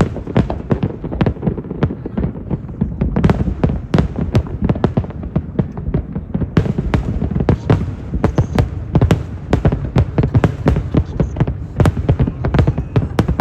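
Aerial fireworks bursting in rapid succession: a dense, unbroken run of booms and sharp cracks.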